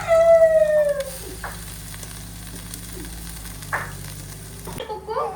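Food sizzling in a frying pan, a steady hiss, with a brief falling tone in the first second; the sound changes abruptly near the end.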